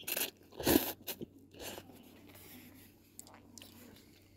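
Crinkling of an instant-noodle cup's foil lid and paper cup being handled: three short crunchy rustles in the first two seconds, the loudest a little under a second in.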